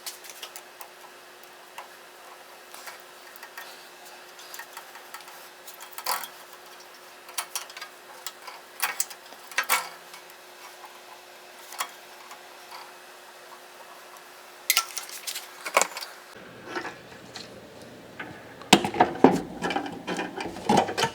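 Scattered clinks and taps of metal hand tools and small parts being handled, with a denser stretch of clatter near the end.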